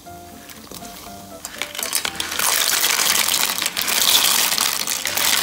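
A mass of cockle shells clattering and splashing as they are poured into a plastic basin of hot water. The dense rattle starts about a second and a half in and keeps going, over soft background music.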